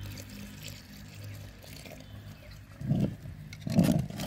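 Water being poured into a pot of thick wheat porridge to loosen it. From about three seconds in, a few louder, rough, low-pitched strokes.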